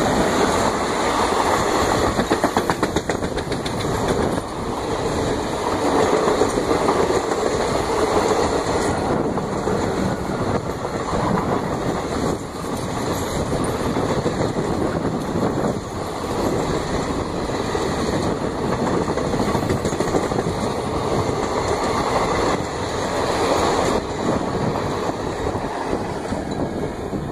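Passenger coaches of an express train running past at high speed close by: a steady rush of wheels on rail with repeated clickety-clack over the rail joints, easing slightly near the end as the rear luggage van goes by.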